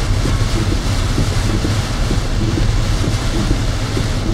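Car driving on a rain-soaked highway, heard from inside the cabin: a loud, steady rush of tyre, road and rain noise.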